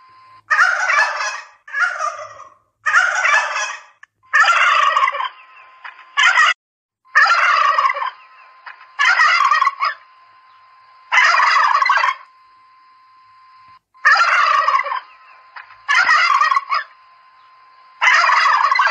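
Domestic turkeys gobbling: about eleven gobbles, each roughly a second long, one after another with short pauses between.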